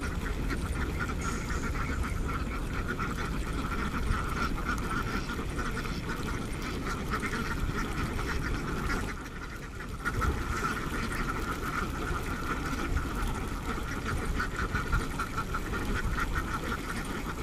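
A large flock of domestic ducks quacking in a constant overlapping chatter, with a brief lull about nine seconds in.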